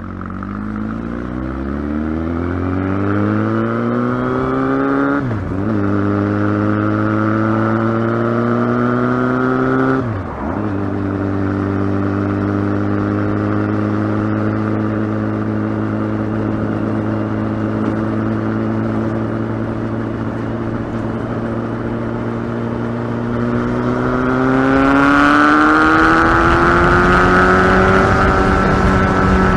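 Kawasaki ZX-12R's inline-four engine running under way. It revs up over the first few seconds, dips sharply in revs twice, about five and ten seconds in, holds a steady pitch, then revs up again and runs louder near the end.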